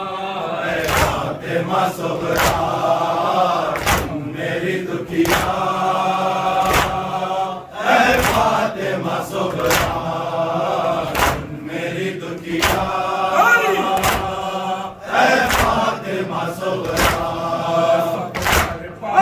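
Male voices chanting an Urdu noha (Shia mourning lament) in unison, led by a group of reciters. Rhythmic chest-beating (matam) lands in time with it, a sharp slap about every one and a half seconds.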